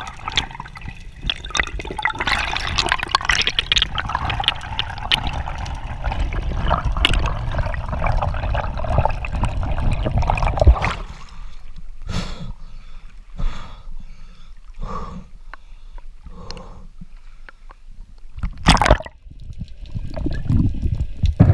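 Underwater water noise against a diving camera's housing: a dense rush for about the first ten seconds, then separate gurgling swishes about every second and a half, and one short loud burst near the end.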